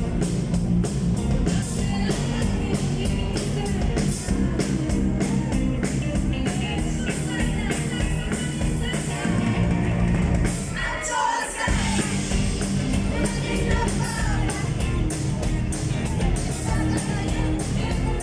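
Live rock band playing with singing, its beat hitting steadily; the low end cuts out briefly about eleven seconds in, then comes back.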